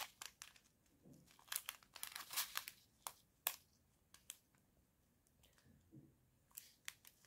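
Clear plastic packets of diamond painting drills crinkling as they are handled, in short, irregular rustles with a quieter stretch past the middle.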